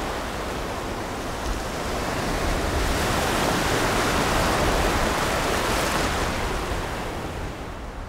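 Gulf surf washing ashore: a steady hiss of breaking waves that swells in the middle and eases off near the end.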